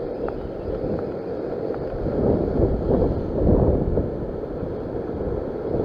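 Sea waves surging and washing over a rock ledge, with wind buffeting the microphone; the wash swells louder about two to three seconds in.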